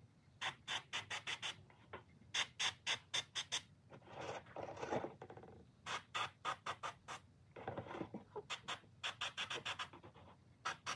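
Airbrush spraying paint in runs of short hissing puffs, several a second, with a couple of longer sprays in between.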